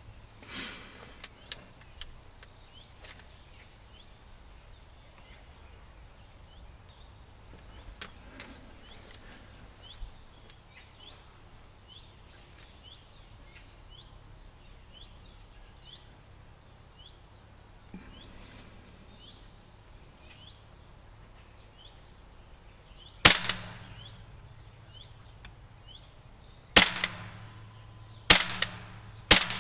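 Hatsan Bullmaster semi-automatic PCP bullpup air rifle, regulated and in 4.5 mm calibre, firing four sharp shots after a long quiet stretch, the last three in quick succession near the end.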